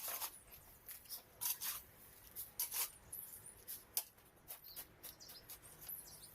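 Irregular light clicks and scratchy scrapes, a few a second, from hand work.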